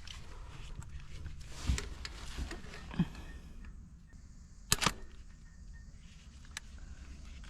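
Scattered clicks and light knocks of hand tools working a small Torx screw on an engine, with one sharp click a little under five seconds in, over a low steady hum.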